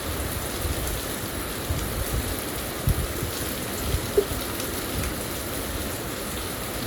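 A steady rushing noise, like rain, with a low rumble and a few light knocks about three and four seconds in.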